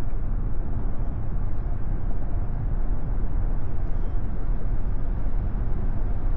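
Steady road and tyre noise heard inside the cabin of an AITO M9 on the move: an even, low rumble.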